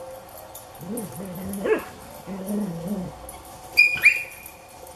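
Dogs playing rough, giving low whining grumbles in the first few seconds, one breaking sharply upward, then two sharp high yips about four seconds in.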